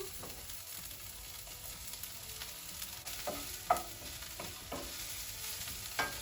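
Vegetables with freshly added mushrooms sizzling in hot oil in a non-stick frying pan while being stirred, with a few short knocks of the utensil against the pan, the sharpest a little under four seconds in.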